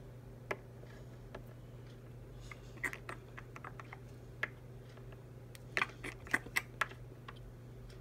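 Light plastic clicks and taps as a small plastic toy figure is handled and set down on a hard dollhouse floor, in two quick clusters about three and six seconds in, over a low steady hum.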